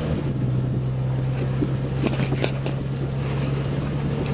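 Jeep Cherokee's 4.0-litre straight-six engine running steadily at low revs while driving slowly over dirt, heard from inside the cabin; the engine note eases slightly just after the start. A few short knocks and rattles come about two seconds in.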